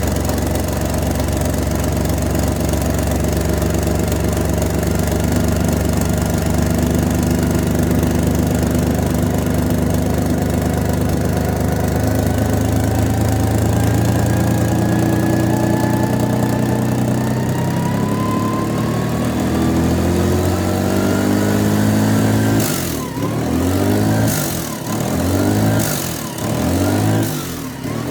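Toyota 1FZ-FE straight-six engine running after a rebuild, its speed slowly creeping up with a thin whine rising in pitch alongside. Near the end it surges, rising and falling about every second and a half.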